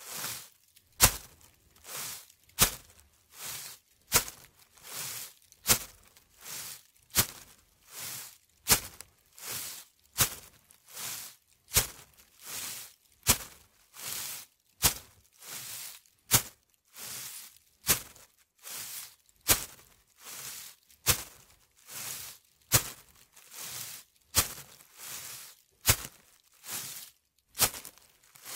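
Footsteps walking at a steady pace on leaves, each step a crisp crunch and rustle, about one step every 0.8 seconds, every other step a little sharper and louder.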